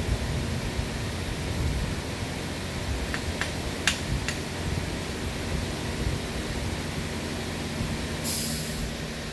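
Steady workshop background noise, with a few sharp metallic clicks from a hand tool on the engine's cylinder head about three to four seconds in, and a short hiss near the end.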